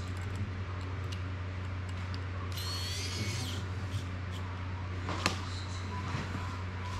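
Small hand screwdriver working screws on a plastic drone frame, with faint clicks over a steady low hum. A brief high whir comes near the middle, and about five seconds in there is a sharp tap as the screwdriver is set down on the cutting mat.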